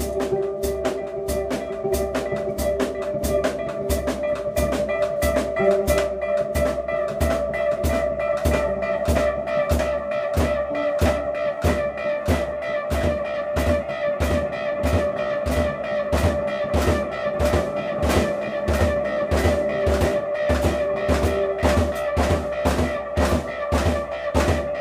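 Live instrumental band of viola, guitar and drum kit playing: the drums keep a steady beat of about three hits a second under long held notes.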